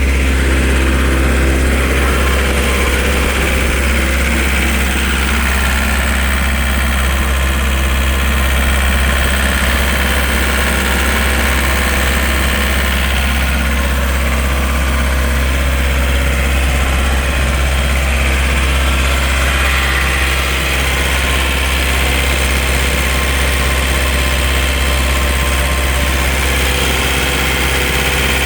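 The John Deere 4024T four-cylinder turbo diesel engine of a 2011 Sullair 185 portable air compressor, running steadily.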